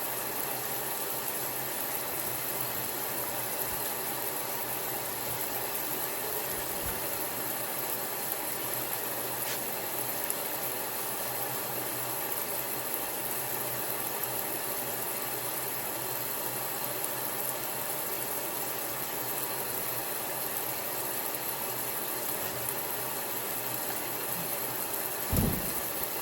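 Steady hiss of running water, with a short low thump near the end.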